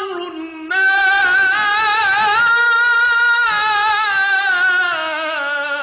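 A solo male voice chanting Arabic devotional verse in a slow melismatic style: it sings the word 'lisharri' and then holds one long note with a wavering vibrato for about three seconds, before drifting lower in ornamented turns.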